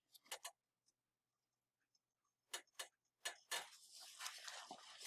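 Faint, sparse clicks of a wooden spoon knocking against a stainless steel saucepan while a fudge mixture is stirred. A faint hiss with small crackles comes in near the end.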